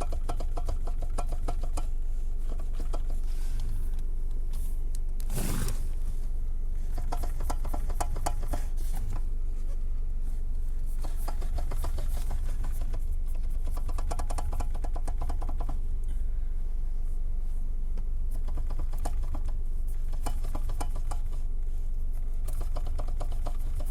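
Knocking in a Renault Mégane II's steering: spells of fast rattling clicks over a steady low rumble, the steering knock fault.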